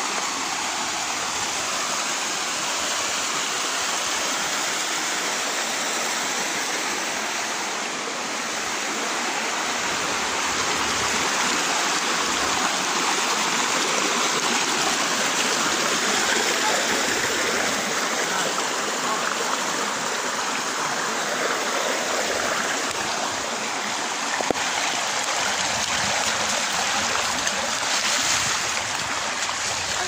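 Hill stream rushing over rock slabs and down a small cascade into a pool: a steady noise of running water, a little louder from about ten seconds in.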